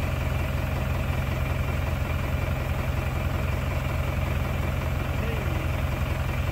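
Farm tractor engine idling steadily with a deep, even hum.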